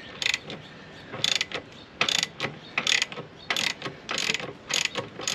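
Socket ratchet clicking in repeated short bursts as the handle is swung back and forth, a little under two strokes a second, backing a PCV valve out of the engine block.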